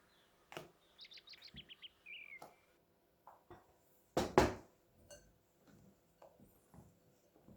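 A bird singing a quick run of short descending chirps followed by one slurred note. About four seconds in comes a loud clatter, like a kitchen utensil or bowl knocked against a hard surface, among a few small clicks and taps.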